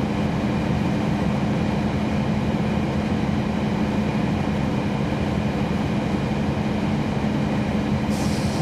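Cummins ISL9 diesel engine and ZF Ecolife automatic transmission of a NABI 40-SFW transit bus, heard from on board, running steadily with a constant low drone. A high hiss starts near the end.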